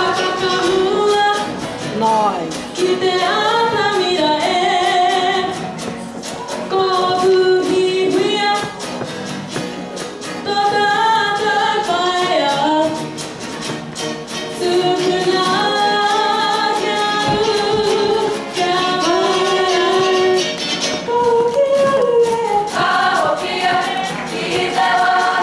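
A large group of female voices singing together, accompanied by ukuleles.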